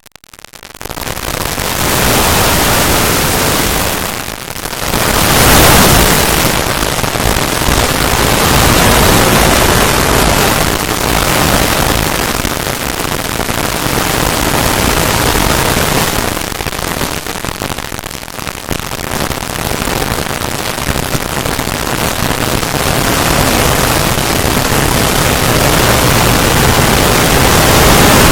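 Loud, continuous harsh noise like static, with brief dips about four seconds in and again around seventeen to nineteen seconds.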